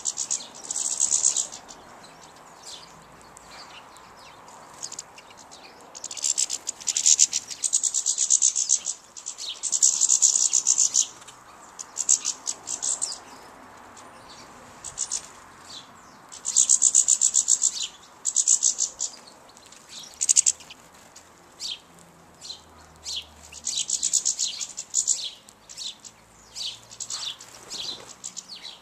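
Small finches twittering: rapid, high, trilling bouts one to three seconds long, repeated every few seconds and turning into shorter, choppier calls near the end.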